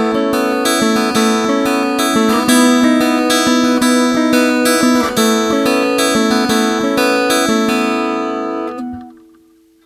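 Background music: acoustic guitar playing a run of plucked notes that ring over one another, fading out about nine seconds in.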